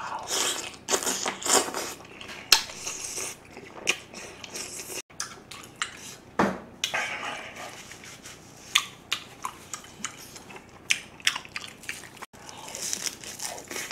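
Close-miked eating: wet chewing of a mouthful of spicy braised monkfish, with wooden chopsticks clicking and tapping against the plate and bowls several times.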